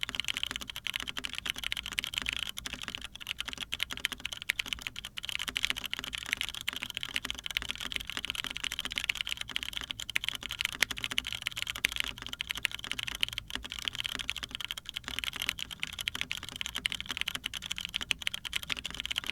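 Continuous fast typing on a Sana prototype TKL mechanical keyboard with a polycarbonate plate and lubed, diamond-polished Cherry MX Brown tactile switches under Zenclack keycaps: a dense, steady stream of bright, crisp key clacks.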